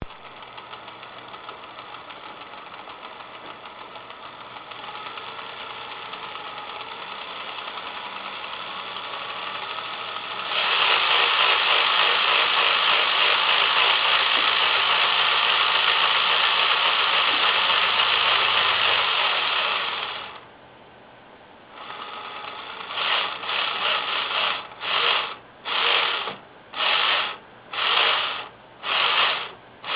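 Star MP312F-24-A dot-matrix printer mechanism running with a continuous mechanical buzz. It grows much louder about ten seconds in and stops about twenty seconds in. Then it returns as a series of short buzzes about once a second.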